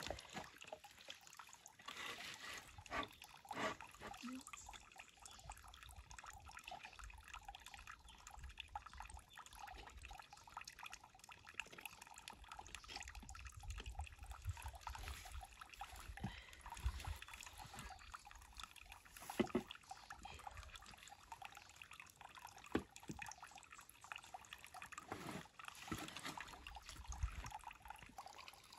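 Water splashing and dripping in a shallow basin as hands work through small fish in it: a scatter of small, uneven splashes and trickles.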